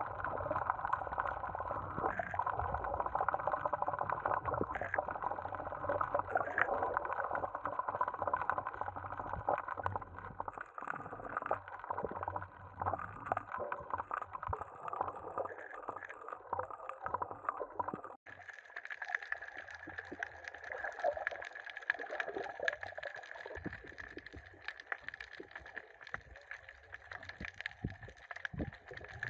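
Muffled underwater sound from a submerged camera: a steady gurgling water noise with fine crackling ticks. The sound changes abruptly about two-thirds of the way through.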